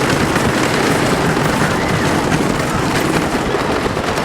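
Wooden roller coaster train clattering at speed along its track, a dense rattling with heavy wind rushing over the phone's microphone.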